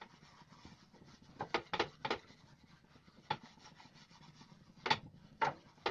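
Half an onion rubbed over a lightly oiled, warm nonstick dosa tawa: a soft rubbing with several short scraping strokes at irregular intervals.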